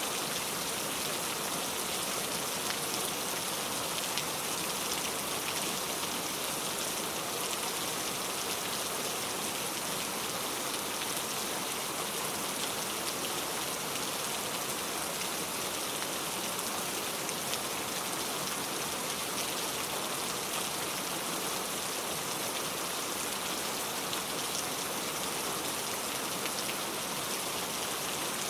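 Heavy rain falling steadily, a dense even hiss with many small droplet ticks.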